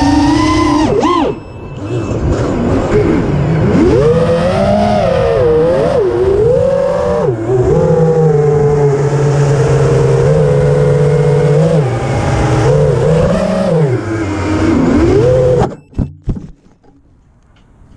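Small multirotor drone's electric motors whining, heard through its onboard camera, the pitch rising and falling with the throttle, with a brief drop just over a second in. Near the end the whine cuts off suddenly, followed by a couple of knocks as the drone comes down in the grass.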